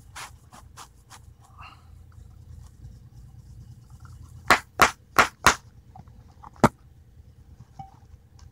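A round tin of dipping tobacco being packed: after a few light clicks, four sharp taps come about a third of a second apart, then one more a second later.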